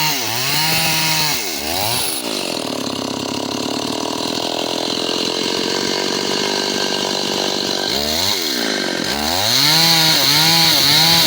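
Two-stroke chainsaw cutting timber. The high engine note dips and recovers as the chain bites, drops to a lower note for several seconds in the middle, then climbs back with quick dips about twice a second near the end.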